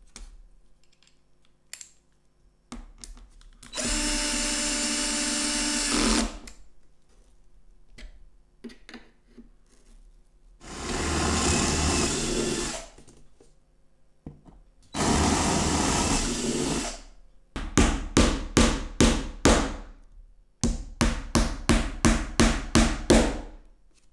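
Power drill running in three steady bursts of about two seconds each, then run in two series of quick trigger pulses, about three a second.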